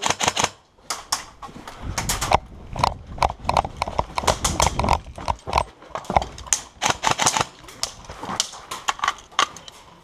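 Footsteps of a player moving over rough ground: a run of irregular thuds and clicks.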